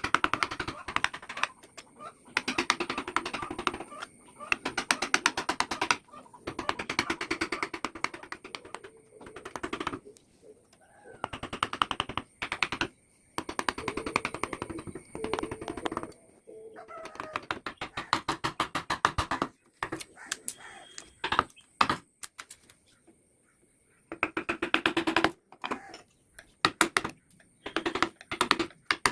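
Wood-carving chisel being tapped rapidly into teak wood, in runs of quick clicking taps a second or two long with short pauses between them.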